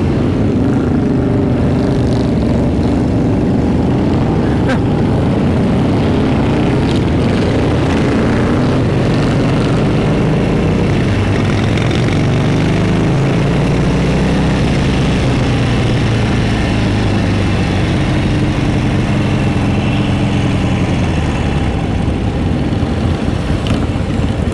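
Motorcycle engine running while riding, its note rising and falling a few times as the bike speeds up and eases off, over steady road and wind noise.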